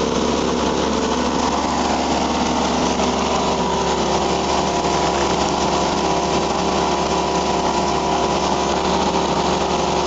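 Small engine running steadily at constant speed, driving a homemade volcanic-ash vacuum cleaner with its outlet port left open.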